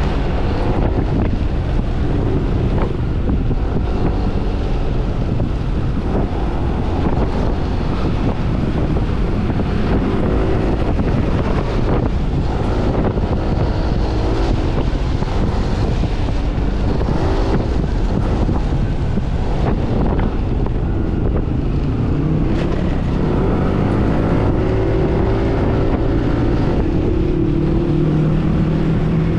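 Yamaha NMAX scooter's single-cylinder engine running on the move, with heavy wind noise on the microphone; the engine note rises and falls with the throttle.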